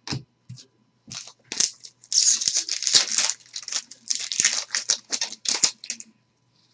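Foil wrapper of a trading-card pack being torn open and crumpled by hand: irregular crinkling and tearing, densest about two to three seconds in, stopping about a second before the end.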